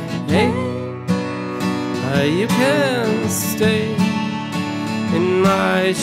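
Acoustic guitar and bowed cello playing an instrumental passage together, with notes that slide up and down in pitch.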